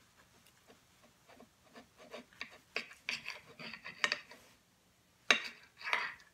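A knife sawing down through a sticky-rice-stuffed roast chicken's crisp skin: a run of short rasping strokes, then two louder strokes a little after five seconds in and near the end.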